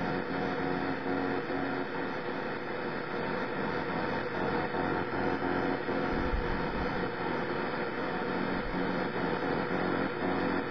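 Grundig Satellit 750 shortwave receiver's speaker giving a steady static hiss, with faint steady tones of a weak, unidentified signal underneath, which is not clearly music.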